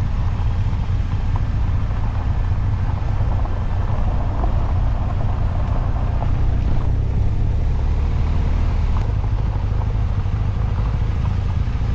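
BMW R 1250 GS motorcycle's boxer-twin engine running steadily while riding a gravel road, with continuous road and riding noise picked up by the bike-mounted camera.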